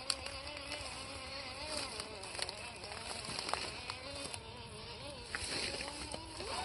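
Small electric motor and gearbox of an MN99S 1/12-scale RC crawler whining. Its pitch wavers up and down as the throttle is worked, with scattered clicks, and rises quickly near the end.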